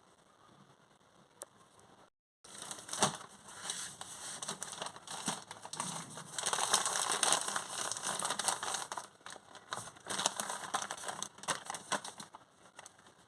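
Plastic blind-bag packaging being crinkled and handled, a dense crackling full of small clicks and rustles that starts abruptly about two and a half seconds in and thins out near the end.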